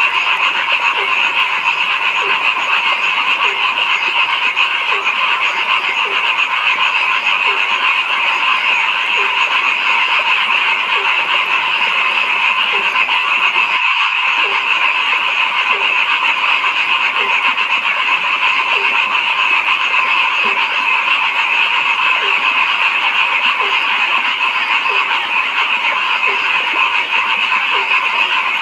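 Dense, steady frog chorus, with one lower-voiced frog croaking at an even pace a little over once a second. The sound drops out very briefly about halfway through.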